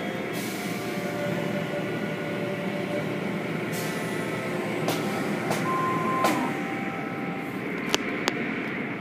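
Automatic tunnel car wash running: cloth mitter curtains swishing over a foam-covered car, with water spraying and a steady machinery drone. A short steady tone sounds about six seconds in, and a few sharp clicks come near the end.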